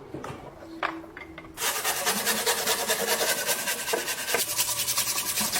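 A few light clicks of metal parts, then from about a second and a half in a loud, rapid rasping scrape of a tool working rust off the lock's metal.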